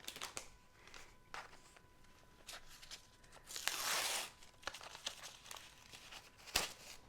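Packaging of a set of handmade paper note cards being opened by hand: intermittent crinkling and rustling, with a longer tearing rustle about four seconds in and a sharp click near the end.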